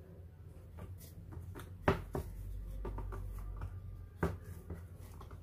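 Wooden rolling pin worked over soft dough rounds on a marble countertop: a low rolling rumble with two sharp knocks, the louder one about two seconds in and another just past four seconds.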